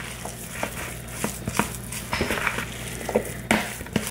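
Fork stirring and mashing a thick tuna salad in a plastic mixing bowl: irregular clicks and scrapes of the fork against the bowl.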